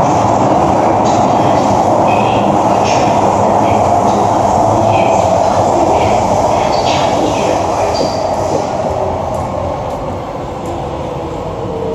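Running noise inside an SMRT C151A metro train car in a tunnel: a steady, loud rumble of wheels on rail and traction motors. Near the end it grows slightly quieter, with a faint falling tone.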